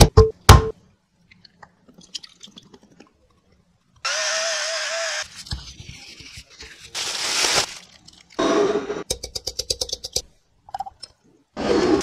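Close-up food-prep handling of raw chicken drumsticks in a bowl: sauce poured in with a steady hiss, wet squishing as a gloved hand works the marinade into the meat, and a quick run of ticks. Plastic cling film crinkles as it is stretched over the bowl near the end.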